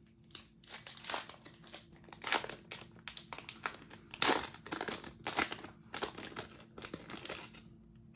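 Foil wrapper of a 2020 Bowman Draft trading-card pack crinkling in irregular crackles as it is handled and torn open by hand.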